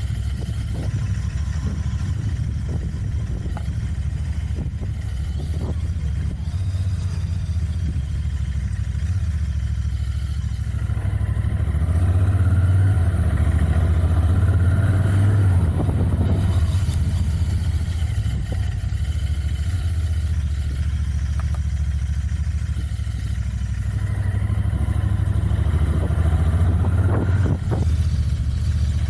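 Royal Enfield Continental GT 650's stock-exhaust 648 cc parallel-twin engine running on the move, a steady low exhaust note. It swells louder twice, around the middle and again near the end, as the throttle is opened.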